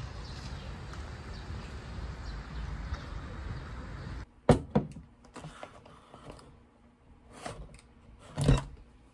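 Steady low outdoor rumble, then a few sharp knocks and crinkles of plastic packaging as a wrapped plastic meat tray is handled and set down on a stone kitchen counter. The loudest knock comes near the end.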